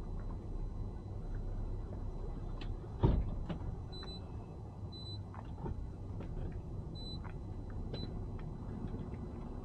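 Steady low rumble of a boat's engine running slowly while towing, with a single loud thump about three seconds in and scattered small clicks. Short high electronic beeps sound about once a second from about four seconds in.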